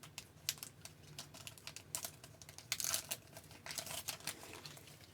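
Trading card pack wrapper crinkling and tearing as the pack is opened by hand: irregular crackles and rustles, loudest about three seconds in and again just before four.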